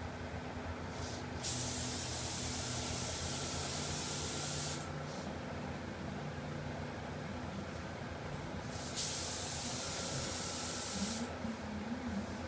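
Graco G15 air-assisted airless spray gun hissing as it sprays lacquer, in two trigger pulls of about three seconds each. Between and under them, a steady hum from the paint pump and small air compressor.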